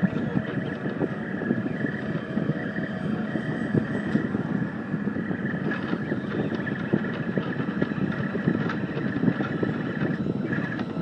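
Rostock delta 3D printer printing, its stepper motors buzzing and whining without a break as the print head darts quickly about, with a steady high whine over a fast-changing chatter.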